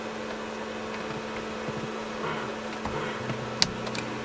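Light clicks and taps of a window screen frame being worked into a van's side-door window frame, the sharpest about three and a half seconds in, over a steady low hum.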